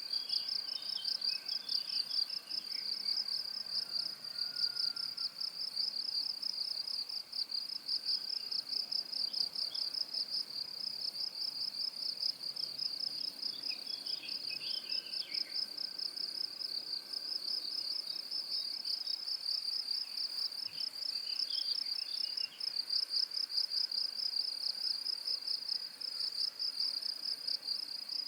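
Crickets chirping in a steady, high-pitched, rapid trill with no pauses. Fainter, softer chirps come and go underneath a few times.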